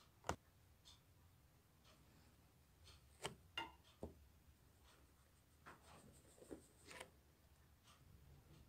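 Silicone spatula working flour into a soft butter-sugar-cocoa cream in a glazed earthenware bowl: faint scraping and rubbing with a handful of short, sharp knocks of the spatula against the bowl, the loudest just after the start and several more around the middle.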